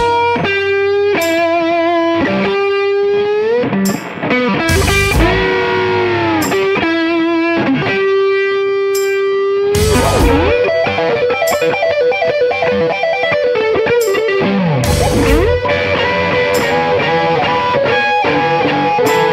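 Electric blues band playing an instrumental passage: an electric guitar solo of held notes bent up and down with vibrato, over bass and drums.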